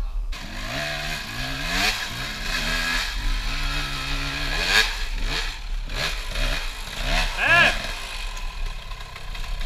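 Dirt bike engine revving in uneven bursts under load on a steep rocky climb, its pitch jumping up and down as the throttle is blipped, with a sharp rising rev a little after seven seconds.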